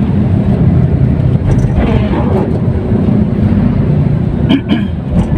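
Steady low rumble of road and engine noise from inside a moving car, with two brief clicks about four and a half seconds in.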